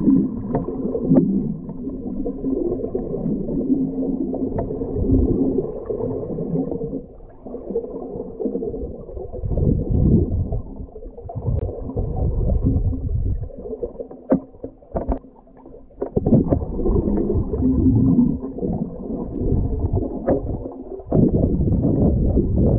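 Muffled underwater noise recorded through a GoPro's waterproof housing as a diver swims: a low, shifting rumble of moving water with scattered sharp clicks and knocks, most of them in the second half.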